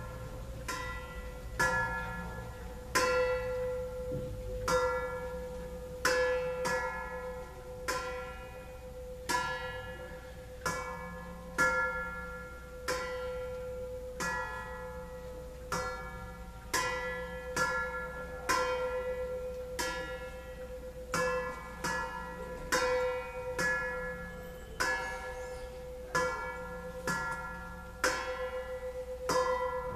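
Metal bowls struck again and again at an uneven pace of roughly one strike a second, each ringing out with bell-like tones. A steady ringing tone holds one pitch underneath throughout.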